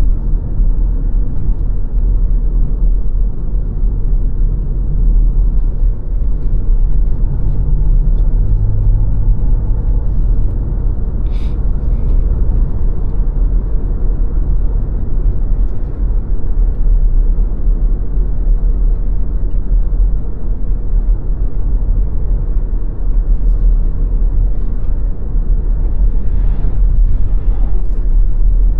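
Steady low road rumble of a car driving: tyre and engine noise, with one brief click about eleven seconds in.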